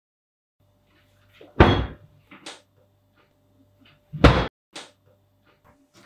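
Kitchen cabinet doors being opened and banged shut: two loud slams about two and a half seconds apart, each with smaller knocks and clicks of the doors around it.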